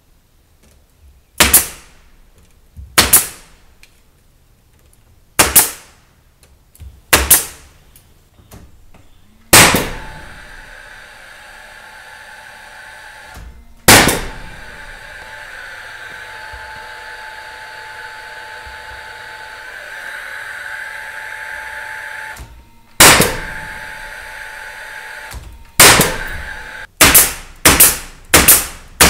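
Pneumatic nail gun firing nails into wooden framing boards. There are single sharp shots every second or two, then a quick run of five or six shots near the end. For about thirteen seconds in the middle, a steady machine noise runs underneath.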